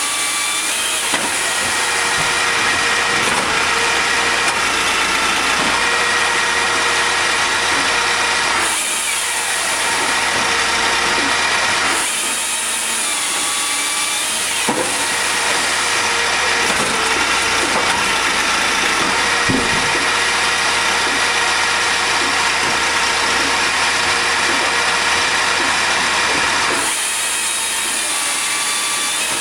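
Tajfun XE 10 sawdust extractor fan running steadily, pulling air and sawdust through a flexible hose: a constant machine whir with a whine over it. A brighter rushing hiss comes in for about three seconds around nine seconds in and again near the end.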